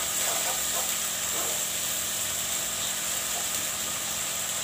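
Onion and garlic paste sizzling steadily in hot oil in a frying pan while it is stirred with a wooden spatula, over a steady low hum.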